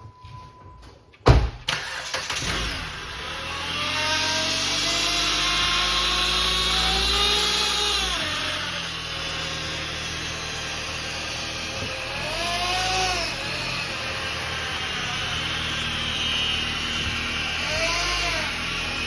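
2013 Jeep Compass engine cranked and started about a second in, then running while it is revved up and back down about three times. A whine rises and falls in pitch with each rev; the whine comes from the failing transmission.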